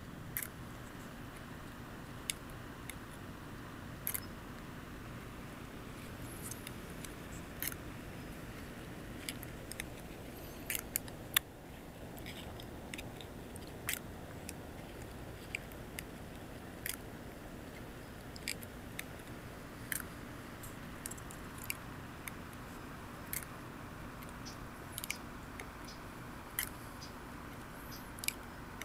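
Light, irregular clicks and taps, about one every second or two, from a wind-driven cardboard walking robot's wooden-peg leg linkage as it steps across a wooden table, over a steady hiss.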